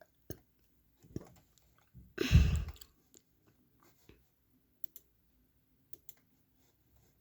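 Scattered faint clicks, a few a second and irregular, with one brief louder burst of noise about two seconds in.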